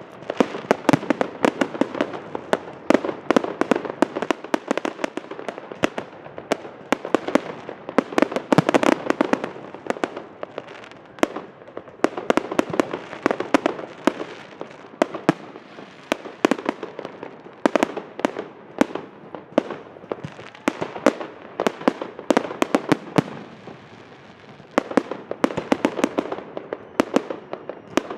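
Aerial fireworks shells launching and bursting in a rapid, continuous barrage of bangs and crackling, thinning briefly about three-quarters of the way through before picking up again.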